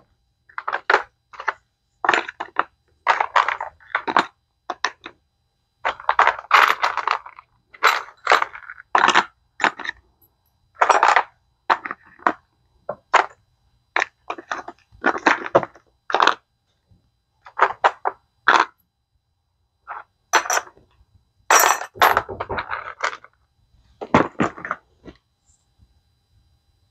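Clear plastic small-parts organizer trays being handled, opened and shut, making a run of irregular plastic clacks and rattles.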